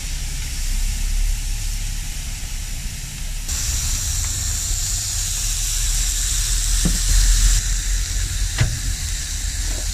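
Thin beef burger patties sizzling on a flat-top griddle, a steady frying hiss that grows louder and brighter for a few seconds in the middle. A few light clicks come in the second half.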